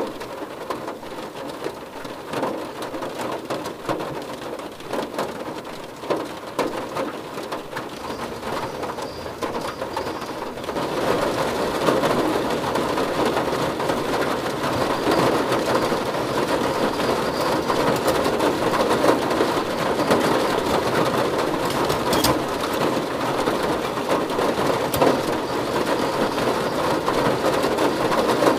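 Heavy rain falling steadily, growing louder about ten seconds in.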